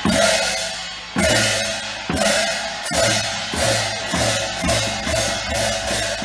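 Tibetan Buddhist monastic cham dance music: drum and cymbal strokes in a steady beat, about two a second, with the cymbals ringing on between strokes over a held tone.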